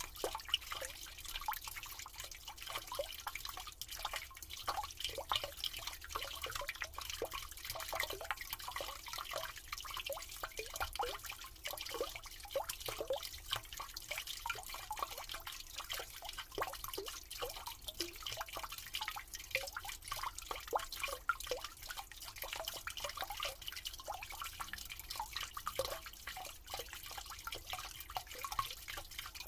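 Water running down a drain, with a continuous patter of small drips and plops and a trickle.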